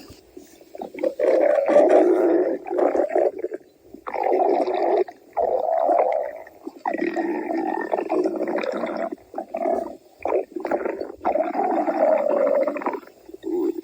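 A cartoon character's hungry stomach growling loudly, in a run of long growls about one to two seconds each, one after another with short breaks.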